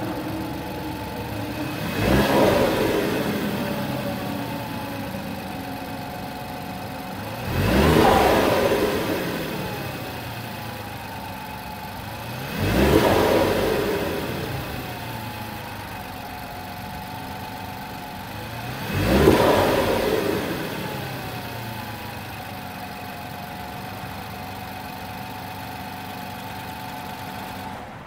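2017 Alfa Romeo Giulia Quadrifoglio's 2.9-litre twin-turbo V6 idling and revved four times. Each rev climbs sharply and falls slowly back to a steady idle.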